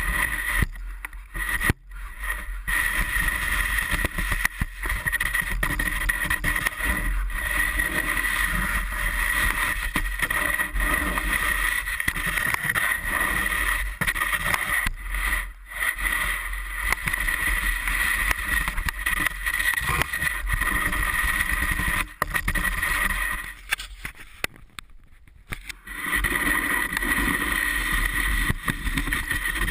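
Snow shovel pushed along a snow-covered wooden deck, its blade scraping over the boards and shoving snow, heard through a camera mounted on the shovel. A steady high whine runs underneath; the scraping stops briefly a few times, longest for about two seconds near the end.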